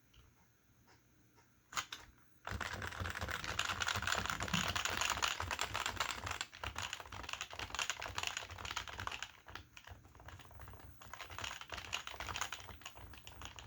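Fast typing on a stock HHKB Professional keyboard with Topre switches and PBT dye-sub keycaps: a couple of single key clicks, then a dense, continuous run of keystrokes from about two and a half seconds in, softening slightly partway through. The switches still have their original rubber domes.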